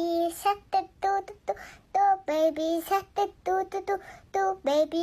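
A high, child-like voice singing a quick melody of short, clipped notes.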